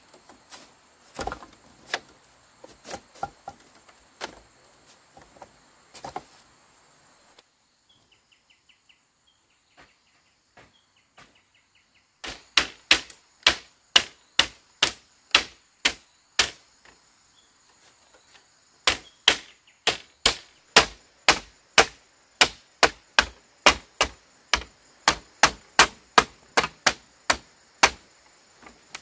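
Machete blade chopping into bamboo slats: scattered knocks, a short lull, then two long, even runs of sharp chops at about two or three a second with a brief pause between them.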